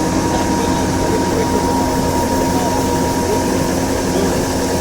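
GAM mini combine harvester running steadily, a constant engine drone with a steady high whine over it.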